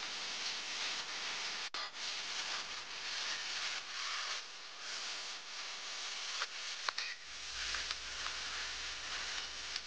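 Oil sizzling in a hot wok as shredded pork, then chili peppers and celery, are stir-fried. The metal spatula clicks and scrapes against the wok a few times near the end.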